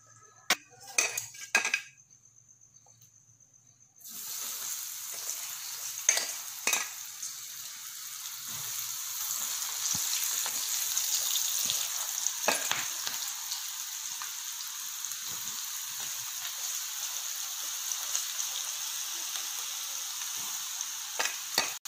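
Gram-flour-coated okra strips deep-frying in hot oil in a pan: a steady sizzle that starts suddenly about four seconds in, after a few light knocks and near quiet. A few sharp clicks stand out over the sizzle.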